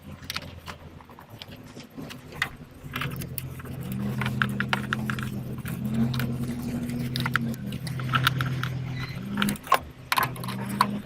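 Hand tools clicking and clinking against metal in the engine bay, in short irregular taps, as the engine mount is refitted. A steady low engine hum runs underneath from a few seconds in.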